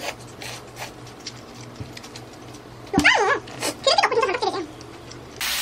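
Dog whining in short high-pitched yelps, two quick bouts about three and four seconds in.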